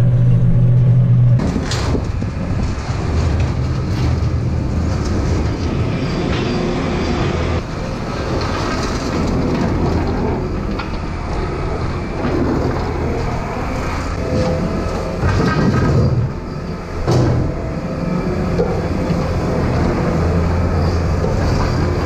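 Tractor engine running as its front-loader bucket scrapes bedded-pack manure along a concrete barn floor, with a rough scraping noise and a few sharp clanks from the bucket.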